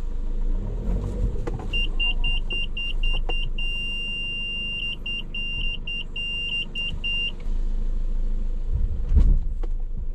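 A car's parking-sensor beeper sounds over the low rumble of idling engines. It gives quick high beeps, runs into a steady tone for about a second, then goes back to quick beeps: the warning for an obstacle or person close behind a car in reverse. A few sharp clicks are heard as well.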